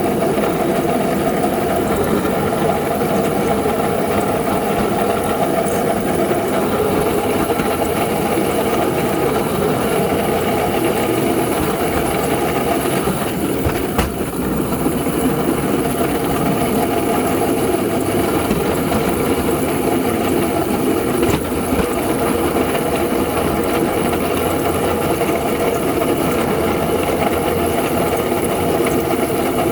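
Engine of a small ridable locomotive running steadily at an even speed, with one sharp click about 14 seconds in.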